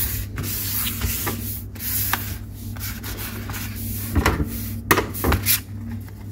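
Paperwork and packaging from a tablet box being handled: rubbing and rustling with a few light clicks and taps, the clearest between about four and five and a half seconds in.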